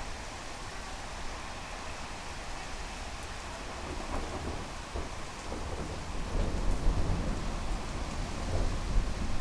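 Heavy rain falling steadily, with a low rumble of thunder building up about six seconds in.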